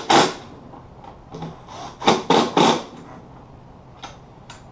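Sharp knocks and clunks of metal parts of a manual transmission being worked on a wooden workbench: two hits at the start, three quick ones about two seconds in, then a couple of lighter clicks near the end.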